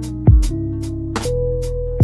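Lo-fi chillhop backing music: guitar chords over a drum beat, with a kick drum and regular hi-hat ticks.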